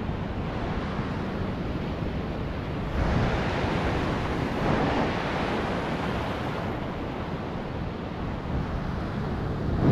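Surf breaking and washing over rocks along the shoreline, a steady rushing noise that swells a little about three seconds in, with wind on the microphone.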